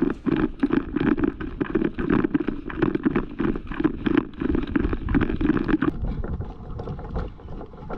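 Rapid rhythmic footsteps of a player running, with gear jostling, a few strides a second; they ease off about six seconds in.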